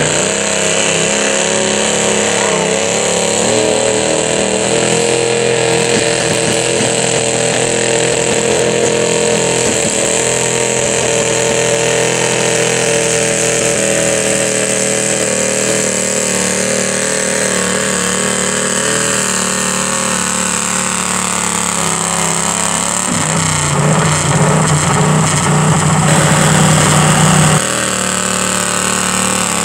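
Modified garden tractor engine running hard under load as it pulls a weight-transfer sled, a steady drone whose pitch sags gradually through the middle. Near the end a louder, lower-pitched stretch breaks off suddenly.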